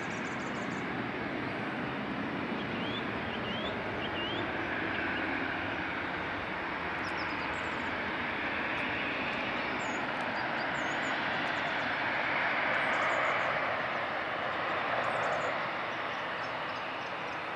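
Jet engines of an Airbus A321-231, IAE V2500s, running as the airliner rolls out along the runway after landing: a steady rush of engine noise that swells louder about two-thirds of the way through. Small birds chirp faintly over it.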